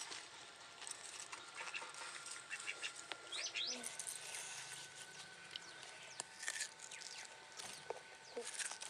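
Birds chirping faintly in short, quick calls, with scattered light clicks and a thin steady tone underneath.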